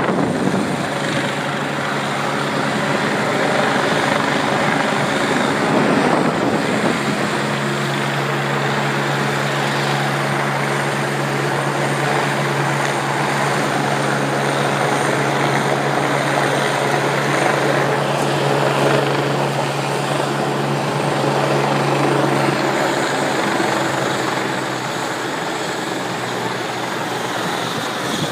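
Helicopter running on the ground, its engine and rotor making a steady noise with a low hum that holds for a long stretch and then changes near the end.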